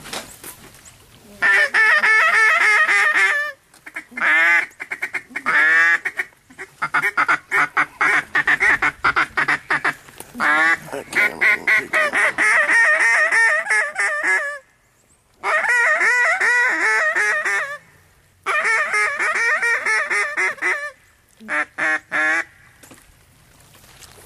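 Hand-blown duck call worked in loud runs of quacks and fast chatter. There are about seven runs of a few seconds each, separated by short breaks, calling to ducks.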